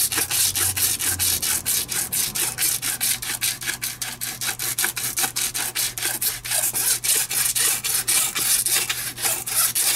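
Sandpaper rubbed by hand back and forth over a car tyre's rubber sidewall in rapid, steady scrubbing strokes, scuffing the rubber so rubber cement will bond to it.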